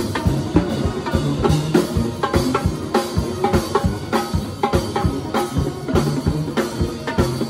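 Drum kit played fast and hard: a dense, unbroken stream of snare, tom and bass-drum strokes with cymbal hits.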